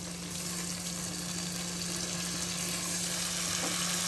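Hot oil sizzling in an aluminium pot as chopped onions go in to fry, growing slightly louder, with a steady low hum underneath.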